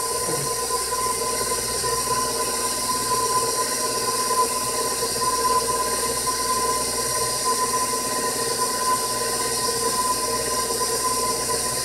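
Bowl-lift stand mixer running steadily, its flat beater turning through thick creamed pound-cake batter: an even motor hum with a steady whine.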